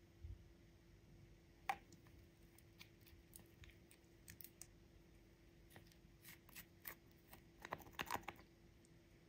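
Faint, scattered clicks and taps of glass nail polish bottles and their plastic screw caps being handled, with one sharp click early on and a quick cluster of clicks near the end as a bottle's cap is twisted open.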